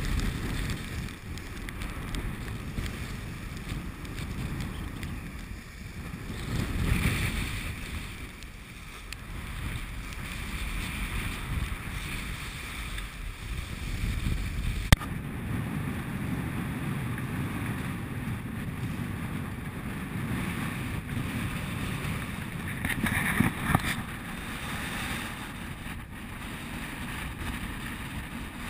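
Wind buffeting the microphone over the rush of rough sea along a sailing yacht's hull as she heels under sail, swelling twice as waves rush past. A single sharp click about halfway through.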